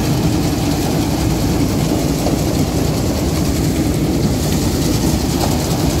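NSG 930 combine harvester's diesel engine running steadily, a loud even drone with no change in speed.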